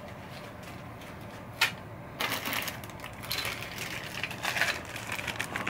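A sharp click about a second and a half in, then plastic parts packaging rustling and crinkling in the hands in several short bursts.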